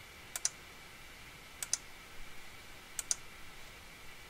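Computer mouse button clicked three times, each a quick press-and-release pair of clicks, spaced about a second and a quarter apart.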